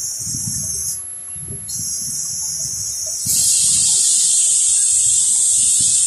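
A high-pitched hiss that drops out for a moment about a second in, then comes back louder and fuller from a little after three seconds, over irregular low rumbling.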